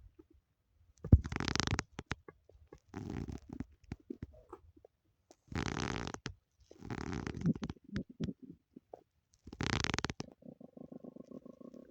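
A person's stomach growling: about five separate gurgling rumbles, each under a second long, then near the end a fast, evenly pulsed creaking growl.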